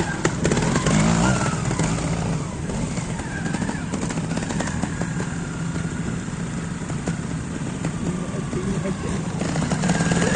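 Single-cylinder trials motorcycle engine running at low revs, with a steady low beat as the rider picks through the section on small throttle openings.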